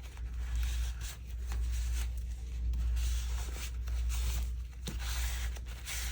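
Soft paper rustling and light handling taps as a paper piece is positioned and pressed down onto a card, over a steady low hum.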